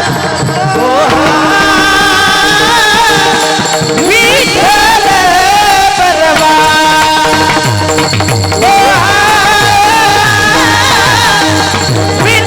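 Devotional singing with ornamented, gliding vocal lines over a steady held drone and regular low drumbeats.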